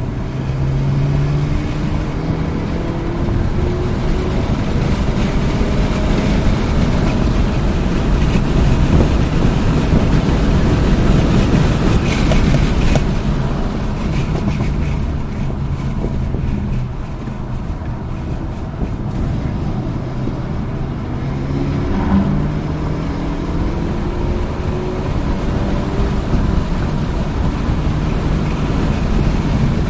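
Hyundai Elantra N's 2.0-litre turbocharged four-cylinder engine pulling hard on track, its note climbing in pitch near the start and again about two-thirds of the way through, under heavy wind and road noise.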